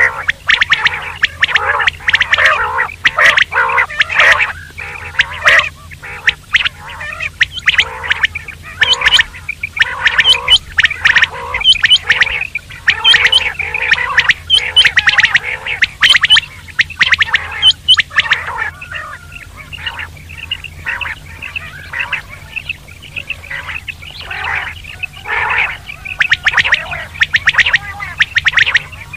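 Common quail calling in a fast, dense run of short repeated notes. The calls thin out about two-thirds of the way through, then pick up again near the end, over a steady low hum.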